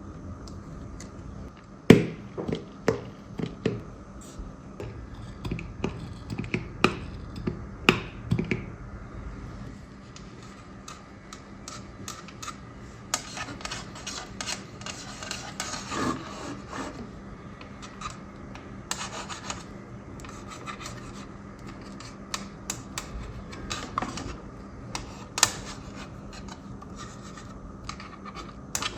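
Hands handling a plastic toy: rubbing and scraping, with scattered sharp clicks and taps and a longer stretch of rubbing in the middle.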